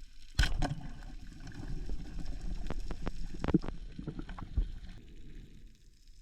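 Underwater sound picked up by a spearfisher's camera: a muffled wash of moving water, with a sharp crack about half a second in and a string of clicks and knocks after it.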